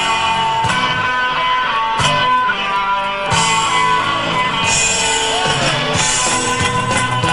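Live rock band playing an instrumental intro, with guitars out in front over bass and drums.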